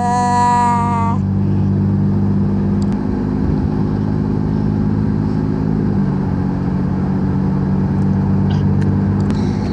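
Steady drone of a car's engine and road noise heard from inside the cabin, a low even hum. For about the first second a voice holds one drawn-out wavering note, then stops.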